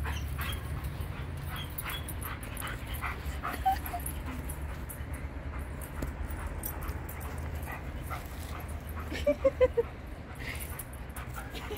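Two dogs playing chase, with scattered rustles and thuds from their running and a quick run of short high yips and whimpers about nine seconds in. A low steady hum sits underneath.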